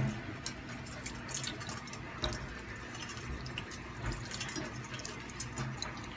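Worcestershire sauce poured from a bottle into a stainless steel bowl: faint, irregular drips and small splashes of liquid landing in a shallow pool of sauce.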